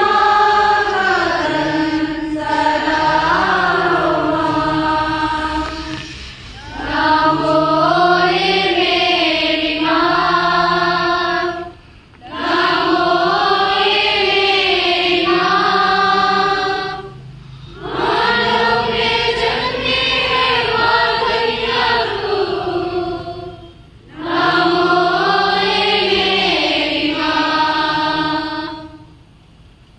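A congregation singing the closing hymn together in unison. The hymn goes in phrases of about five to six seconds with short breaths between them, and the singing ends near the close.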